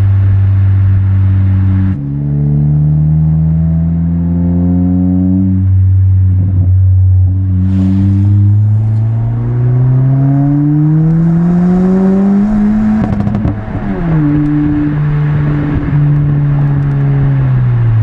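Honda Civic Si's 1.5-litre turbo four-cylinder on the MAPerformance race exhaust, accelerating through the gears. The engine note climbs steadily in each gear and drops at each upshift, about 2, 6 and 8.5 seconds in. It peaks past 12 seconds, then falls away as the car slows.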